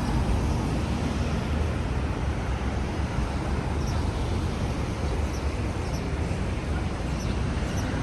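Steady low rumble of vehicle and road noise, with a few faint high ticks from about halfway in.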